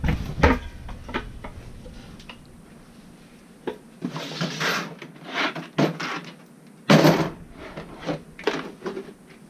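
Irregular clicks, knocks and rustling from hands handling hard objects at close range, with a loud knock about seven seconds in.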